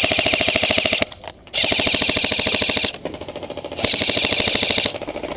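Airsoft gun firing full-auto in long bursts, a fast, even rattle of shots. One burst ends about a second in, another follows half a second later, and a third comes near the end after a quieter stretch.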